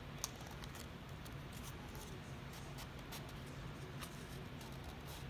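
Faint scratching and small ticks of fingers prying open the flaps of a small cardboard box, with one sharper click about a quarter second in.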